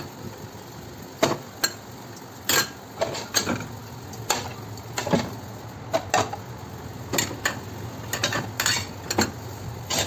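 Ceramic plates and bowls clattering and clinking against each other and against a plastic dish rack as they are handled: irregular sharp knocks, often one to two a second, over a low steady hum.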